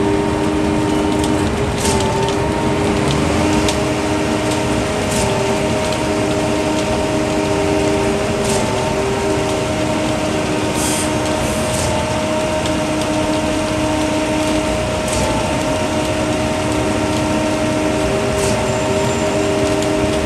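Concrete mixer truck with its drum turning: a steady mechanical whine and hum, with a short clack and a change in the tone repeating about every three and a half seconds.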